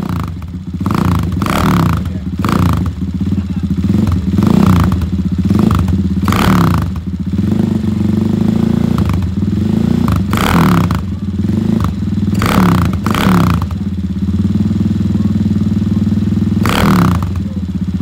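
Single-cylinder engine of a CCM bobber motorcycle idling, its throttle blipped about ten times, each rev rising sharply and falling back to idle.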